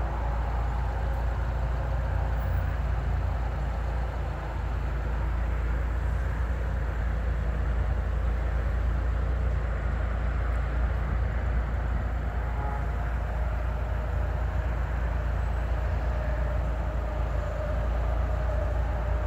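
Steady low rumble of a car's engine and tyres heard from inside the cabin while driving slowly.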